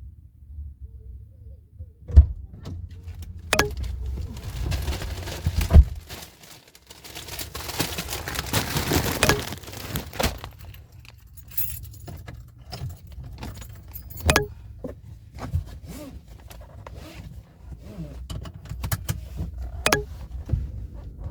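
Keys jangling, with scattered sharp clicks and knocks and a rustling stretch in the middle, over a low steady rumble.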